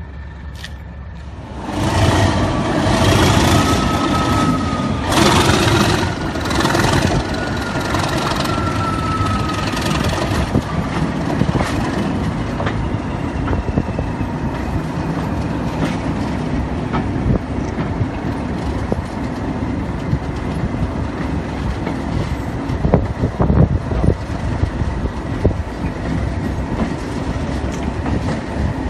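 English Electric diesel locomotive powering up and passing close by: its engine swells about two seconds in, with a turbo whistle gliding in pitch over the next several seconds, then settles to a steady engine drone. A few clicks from the wheels over rail joints come near the end.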